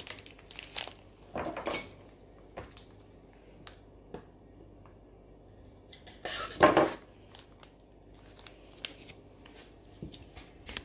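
A plastic piping bag being handled and squeezed, with scattered light clicks and knocks on a worktop. About six seconds in, a knife cuts the tip off the bag against the worktop, the loudest sound.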